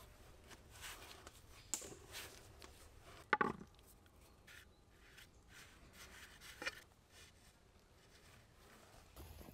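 Soft handling sounds of bread dough being kneaded on a floured wooden board and lifted into a bamboo bowl, scattered light taps and rubs, with one louder knock about three seconds in.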